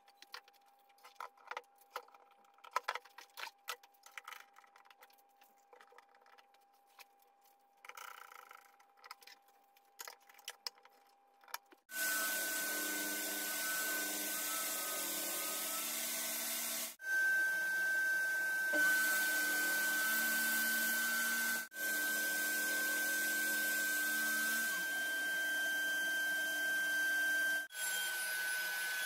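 Light scattered taps and clicks of hands and a bar clamp on an MDF box. About twelve seconds in, a trim router starts cutting MDF on a circle-cutting jig, with a dust-extraction hose attached: a loud steady running noise with a high whine, cutting off and resuming abruptly a few times.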